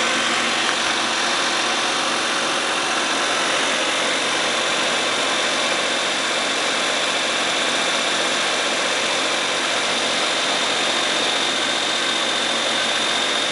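Suzuki Every kei van's engine running steadily, with no abnormal noise to be heard: the noise it used to make has been cured after three repairs.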